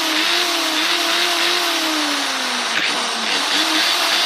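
Corded hammer drill's brushed motor running under power, a steady whine over a harsh roar whose pitch sags slowly, with a brief break about three seconds in before it runs on. The motor is running rough and not happy after a rewire, which the owner puts down to a failing speed controller.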